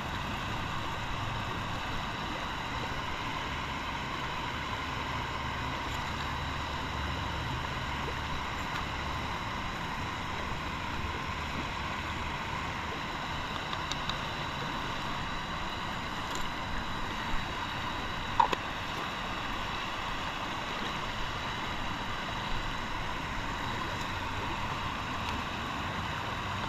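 Steady rushing of a river flowing around rocks, with a few light clicks and knocks about halfway through.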